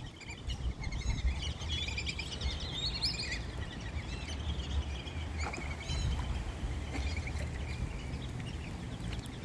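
A busy flock of birds calling at once: many short, high chirps and whistles overlapping, over a steady low rumble.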